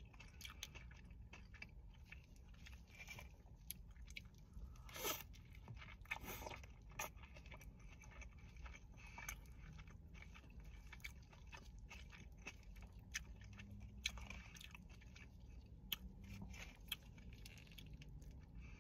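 Faint, close chewing of a burger with tomato and pickle: many short wet mouth clicks and smacks, with two louder bites or crunches about five and six seconds in.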